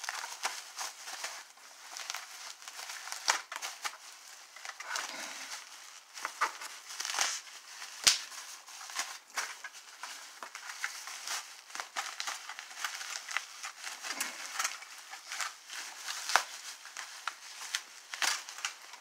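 Plastic bubble wrap being handled and pulled off a small item, crinkling and crackling with many irregular sharp clicks, the sharpest about eight seconds in.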